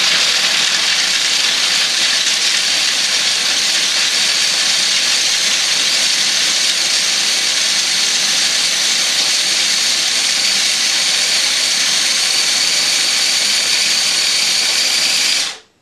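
Small food processor motor running steadily at full speed, pureeing cashews with chopped bell peppers to a fine paste, then switching off near the end.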